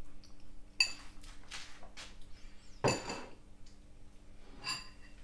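Metal spoon clinking against a ceramic bowl: a light clink about a second in, a louder knock about three seconds in, and another clink near the end, each ringing briefly.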